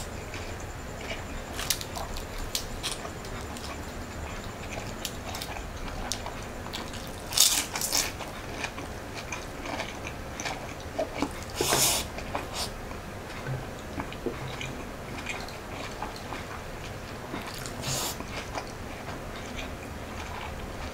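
Close-miked chewing and mouth sounds of someone eating fried rice and siomai by hand, with many small wet clicks and three louder short smacks or bites spread through.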